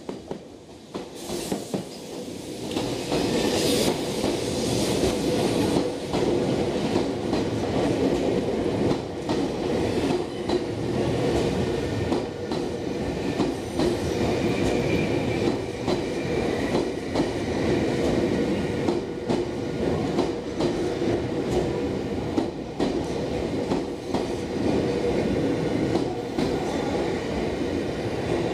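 Nankai electric train rolling slowly past through station trackwork, wheels clattering over rail joints and points, growing louder over the first few seconds and then holding steady.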